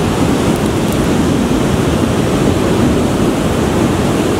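Steady rush of ocean surf breaking on a rocky shoreline, with wind on the microphone.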